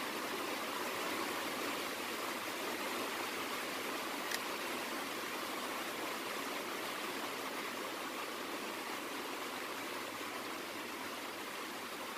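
Steady, even hiss with one small click about four seconds in, as AA batteries are loaded into a Zoom H1n recorder's battery compartment.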